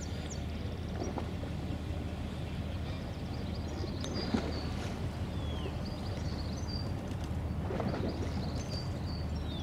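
Steady low outdoor rumble across the river, with small birds chirping on and off in short high notes, one of them a quick falling chirp. A single short knock a little over four seconds in.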